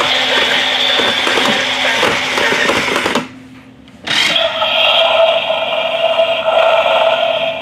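Battery-operated Road Rippers toy cars running: a busy motor whir full of small clicks that drops away about three seconds in, then, after a brief lull, the crocodile monster truck's toy motor whirring with a steady tone.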